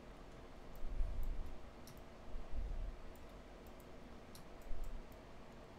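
Scattered sharp clicks of a computer mouse and keyboard as the user works, with a few dull low thumps against the desk or microphone about one, two and a half and four and a half seconds in.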